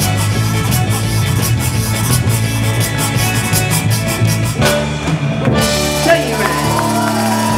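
Zydeco band playing live, with a steady drum-kit beat; about two-thirds of the way through the drums drop out, leaving held notes.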